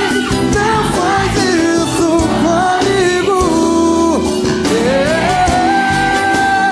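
Live band music with singing: a drum kit and a band with a horn section under a gliding melody line, which settles into a long held note near the end.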